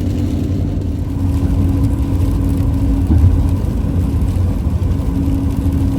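Camper van driving at highway speed on a wet road, heard from inside the cabin: a steady low rumble of road and engine noise with a constant droning hum.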